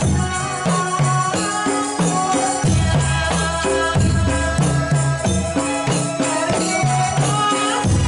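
Live Javanese Ndolalak folk music: a woman sings into a microphone over a steady beat of drums and percussion.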